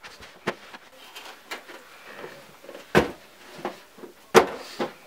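A few sharp knocks and thumps with light rustling between them, the two loudest about three and four and a half seconds in, as cardboard boxes are picked up and handled.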